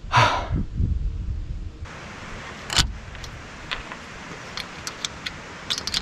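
A loud exhale at the start, then small irregular metallic clicks and ticks of a hand-held Allen key working a screw into a hinge on an aluminium solar panel frame, coming more often near the end.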